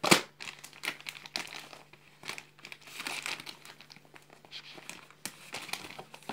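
Clear plastic sleeve crinkling and rustling in irregular bursts as a hardback journal is slid out of it and handled, with a sharp thump right at the start.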